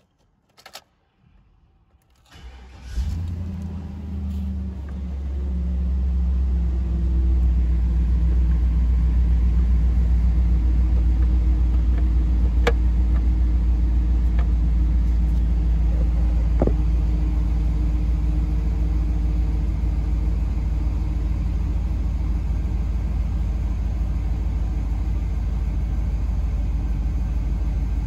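A 2003 Chevy 2500's 6.0-litre LQ4 V8 engine cranking briefly and catching about three seconds in, then settling into a steady idle at about 1,000 rpm, heard from inside the cab. Two light clicks come through during the idle.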